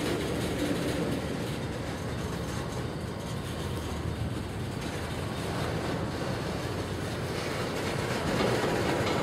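A pair of diesel freight locomotives running under power and moving slowly along the track. It is a steady engine rumble that grows slightly louder near the end.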